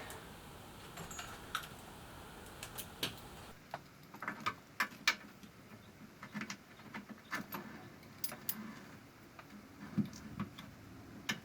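Scattered light clicks, taps and knocks of small hard objects being handled, a few in quick succession at times, with more of them from about a third of the way in.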